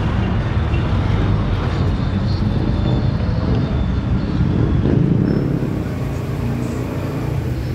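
Street traffic: motor vehicles running along the road, a steady low rumble.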